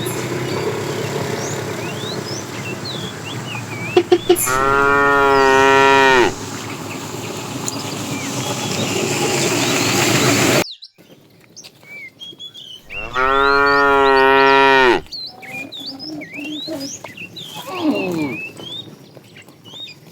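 Cow mooing: two long moos, each about two seconds, roughly nine seconds apart.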